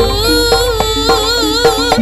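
Live jaranan ensemble music: a bending, wavering melody line rides over regular drum strokes and a steady low gong hum.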